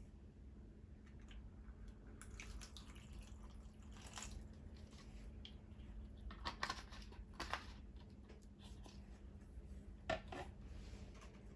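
Faint, scattered drips and small splashes of water with soft handling noises, over a low steady hum.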